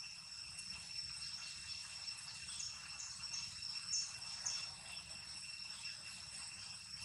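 A steady, high insect drone, with about five short, high chirps around the middle.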